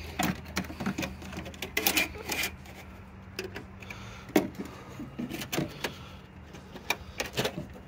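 Irregular small clicks and rattles of a plastic front lamp housing and the wire tied around it being worked loose by hand; the wire stands in for the lamp's broken retaining tab.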